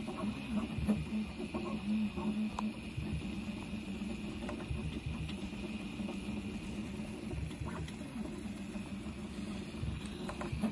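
Steady low electrical hum with a faint, even high whine like a small fan running, under irregular low rumbling and a few faint clicks.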